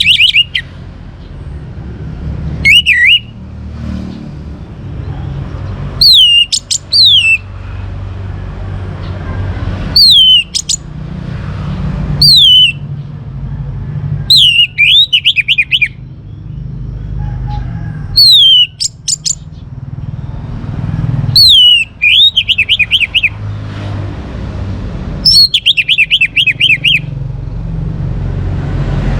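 Young orange-headed thrush singing: short loud phrases every two to four seconds, each a few whistles sliding down in pitch that break into a quick run of rapid notes, over a steady low background rumble.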